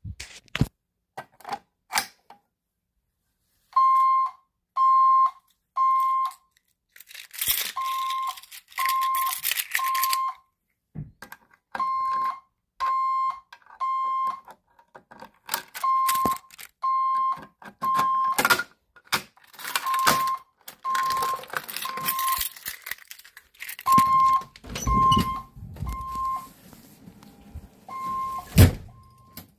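Honeywell Vista 20P alarm system sounding a fire alarm in the temporal-three pattern: three short beeps, a short pause, repeating steadily. Rustling and clicks of handling run under it, with a heavier thump near the end.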